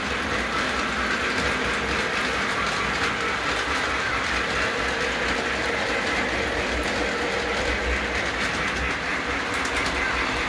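Model train running on the layout track: freight cars rolling and wheels clicking over the rail joints, with a faint steady hum underneath.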